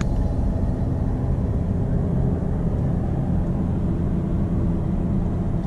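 Steady low rumble of a car driving on an asphalt highway: engine and tyre road noise heard from inside the cabin.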